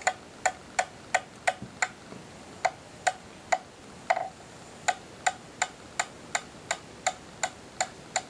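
Claw hammer driving nails into a wooden board: about twenty quick, uneven blows, two to three a second, each a short ringing tap, with brief pauses about two and four seconds in.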